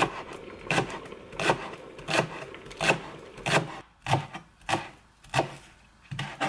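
Chef's knife chopping spring onions on a cutting board: evenly spaced knocks of the blade on the board, about one every 0.7 seconds.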